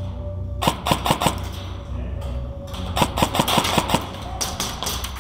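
Airsoft guns firing in quick strings of sharp clacks: about four shots around a second in, then seven or eight more between about three and four seconds, over a steady low hum.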